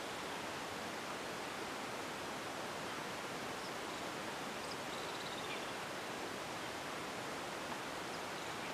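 Steady, even hiss of quiet outdoor ambience, with a faint, short high trill about halfway through.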